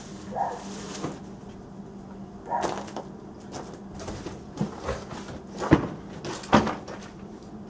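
Irregular knocks and clatter of tools and boxes being picked up, moved and set down, about eight in all, the sharpest a little past two thirds of the way through, over a faint steady hum.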